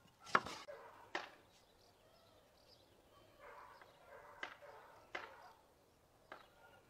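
Knife chopping red bell pepper on a cutting board: a few sharp chops spaced out, the loudest about a third of a second in.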